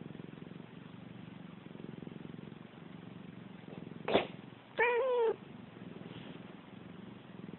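House cat purring with a low steady pulse, then a short sharp sneeze about four seconds in, followed at once by a grumpy, wavering "nuun" meow.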